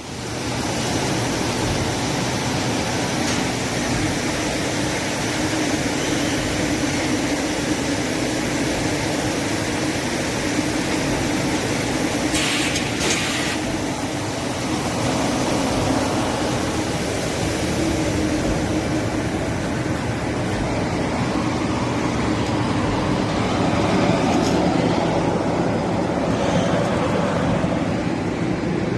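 Shrink-packaging machine with its A6345 shrink tunnel running steadily, a continuous mechanical hum and whir, with a short burst of hiss about twelve seconds in.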